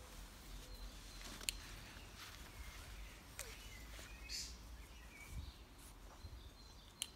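Faint garden ambience with birds chirping in short calls here and there, and a few sharp clicks.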